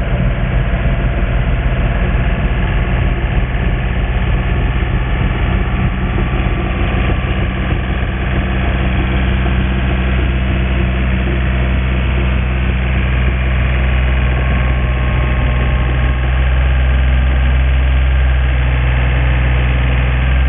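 An engine running steadily at a constant speed: a low, even hum that grows a little louder near the end.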